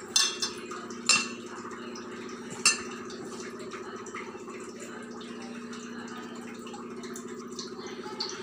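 Hand mixing flour and water into dough in a steel bowl, with three sharp knocks against the metal bowl in the first three seconds, over a steady low hum.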